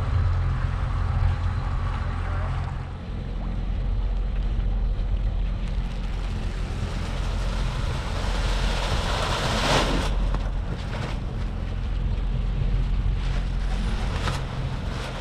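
Wind buffeting the microphone and water washing past the hull of a sailing catamaran under way, over a steady low rumble, with a brief louder rush about ten seconds in.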